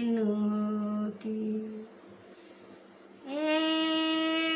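A woman's voice singing a Bhojpuri devotional song to Shiva without accompaniment. She draws out long held notes, with a pause of about a second in the middle.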